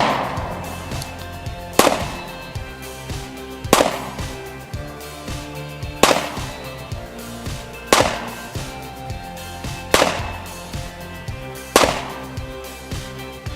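Rifle shots at a shooting range, about seven of them roughly two seconds apart, each sharp crack followed by a short echoing tail, over background music.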